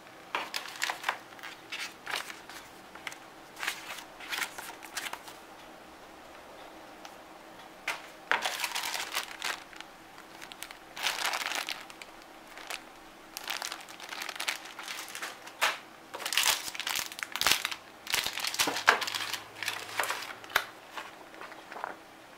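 Clear plastic accessory bag holding SATA cables crinkling as it is handled, in irregular bursts with a short quiet spell about a third of the way in.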